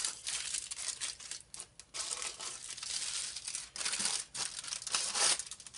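Aluminum foil crinkling in irregular bursts with short pauses as it is pressed and folded by hand around the rim of a cast-iron Dutch oven lid.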